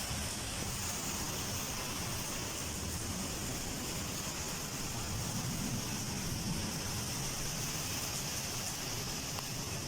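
Heavy rain falling in a steady hiss, with a low rumble underneath.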